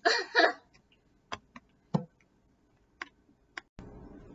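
Handling noises: a few sharp, isolated clicks and light knocks, about one every half second to a second. Near the end a faint steady hiss comes up.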